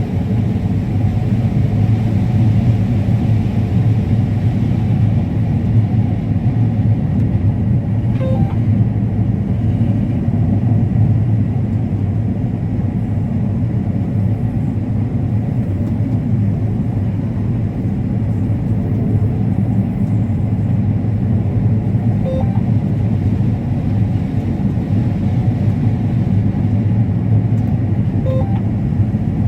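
Combine harvester running steadily while harvesting corn, a constant low drone. Three short, faint beeps sound over it, spread through the stretch.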